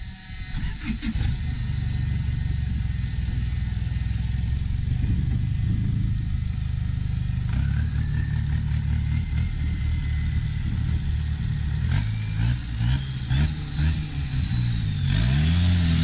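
A powerful engine running hard and revving, its pitch rising several times as it accelerates.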